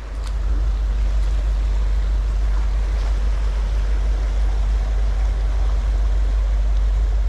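Steady low wind rumble on the microphone over the even rush of a mountain stream.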